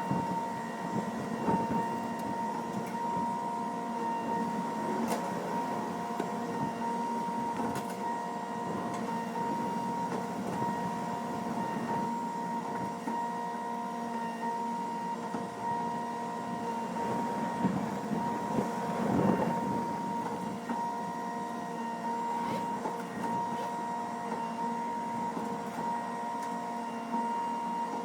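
A machine running steadily with an unchanging whine, holding one pitch throughout, with a few faint knocks over it.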